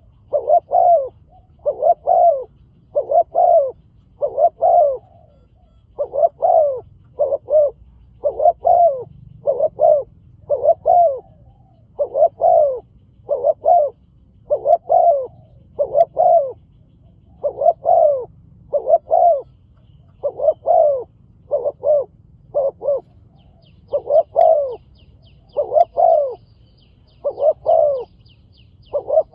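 Spotted dove cooing over and over, a steady run of deep coo phrases of two or three notes each. Faint, rapid, high chirping from a small bird joins in the last quarter.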